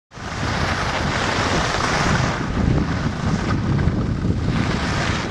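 Wind buffeting the microphone during a ski descent, with the rushing hiss of skis on snow swelling and fading.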